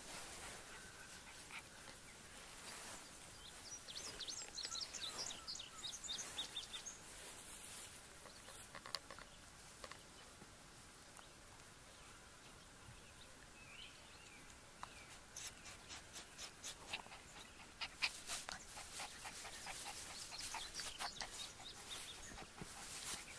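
Five-week-old Australian Labradoodle puppies moving and playing in long grass close to the microphone, with scattered small sounds early on. Near the end comes a dense run of short clicks and scuffs as a puppy comes right up to it.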